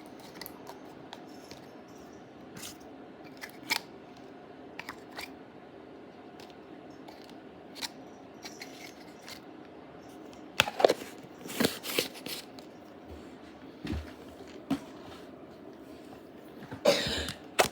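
Slime being squished and stretched by hand: scattered sticky clicks and pops, with louder bunches of pops a little after ten seconds in and again near the end.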